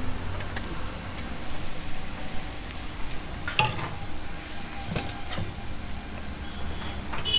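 An egg omelette topped with cheese sizzling in a frying pan on a gas burner, with a few sharp clinks of a metal spatula against the pan as the omelette is folded, the clearest about three and a half and five seconds in.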